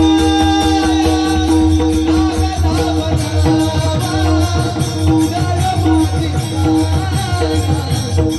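Marathi devotional singing accompanied by pakhawaj drum, over a steady held drone and a fast, even percussion rhythm.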